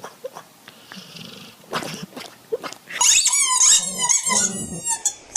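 A dog making noises: faint scuffling and small clicks at first, then from about three seconds in a loud run of rapid, high-pitched squeals.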